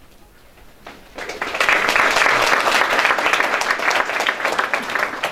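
An audience applauding, breaking out about a second in as a dense patter of many hands clapping.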